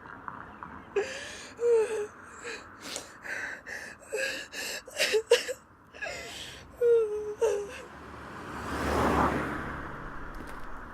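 A person making a run of short breathy gasps and little voiced whimpers, like breathless laughter. Near the end a rushing noise swells and fades.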